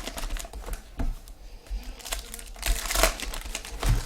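Trading card pack wrappers crinkling as packs are handled and cards are sorted, in irregular rustles and small clicks.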